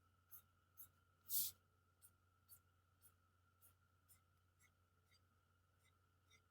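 Faint, light ticks about twice a second, slowly fading, with one louder tap about a second and a half in, over a faint steady hum.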